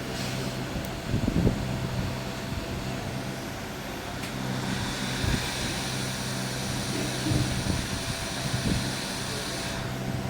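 Steady low machine hum with a few light handling knocks, then from about halfway in a rushing hiss of blowing air that cuts off near the end: a hot-air rework station blowing onto freshly placed surface-mount components on a motherboard.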